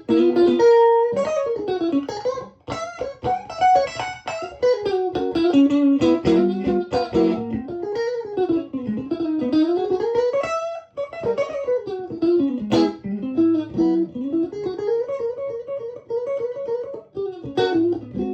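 Electric guitar played through a Victoria 35310 tweed amp, a Fender Bandmaster clone with three 10-inch Jensen P10R speakers, with the guitar's tone knob rolled back for a mostly clean sound. Quick single-note runs climb and fall, with a chord struck near the end.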